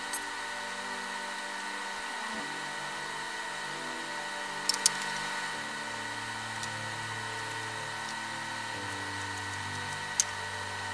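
A steady hum of sustained tones, with the lower tones shifting every few seconds. A few sharp clicks sound over it: a quick pair about halfway through and one more near the end, as hand tools are set down on a wooden plank.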